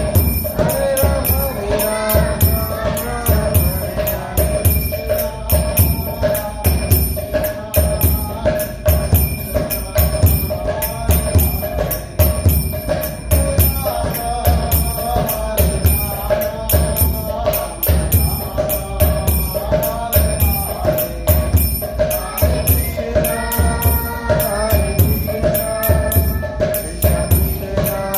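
Music with a steady drum beat and jingling percussion under a wavering melody.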